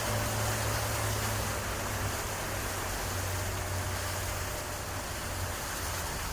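Motor boat under way: a steady low engine hum under a constant rush of wind and water, which eases slightly near the end.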